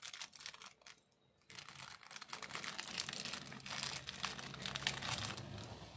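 Crinkling and crackling of a small plastic packet as fingers work it open and pull out a small metal ring, with a brief pause about a second in.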